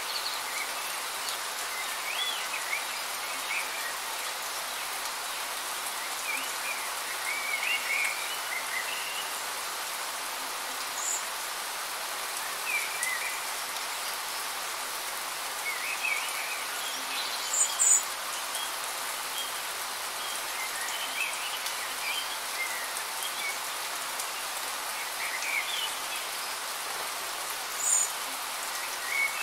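Steady rain hiss, with short bird chirps scattered through it; the loudest chirps come about two-thirds of the way in and near the end.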